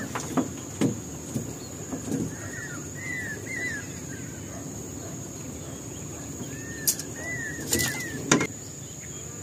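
Bird chirping: short arched chirps in little groups of two or three, repeated several times, over a steady high insect whine. A few sharp knocks sound now and then, the loudest near the end.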